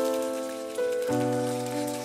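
Background instrumental music: sustained melodic notes over a low bass line, changing chord about a second in, with a faint hiss underneath.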